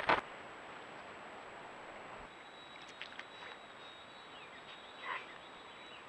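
Brief flutter of a northern cardinal's wings as it takes off, then quiet outdoor ambience with a few faint short calls and a thin, steady high tone.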